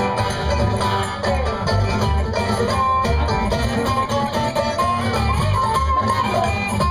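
A bluegrass band playing an instrumental break, with banjo and guitar picking over a steady low bass beat. From about three seconds in, long held notes come in, likely from the fiddle.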